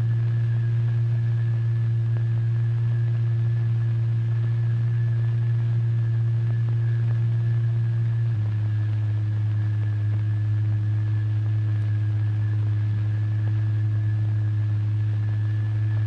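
Steady low electronic drive tone, the frequency used to set a plate or fluid vibrating in a cymatics experiment, over film hiss. It steps slightly lower in pitch about halfway through.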